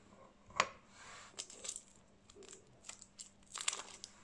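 White camphor blocks being broken and crumbled by hand over a wooden board. A sharp snap comes about half a second in, followed by a scatter of small crunches and crackles as the pieces crumble, thickest near the end.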